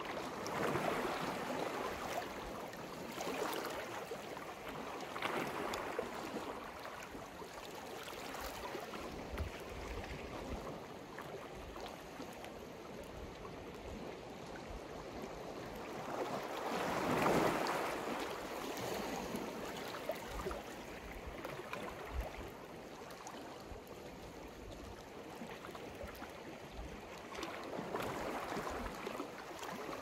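Sea waves washing onto the shore, the noise swelling and falling back every few seconds, with the loudest wave a little past halfway.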